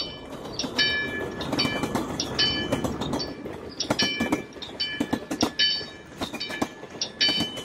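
Railroad wigwag crossing signal working: its bell clangs in quick, regular strokes as the red-lit disc swings, over a low rumble.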